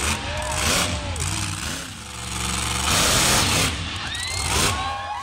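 Monster truck engine revving in repeated loud bursts, easing to a lower steady run about two seconds in before revving again.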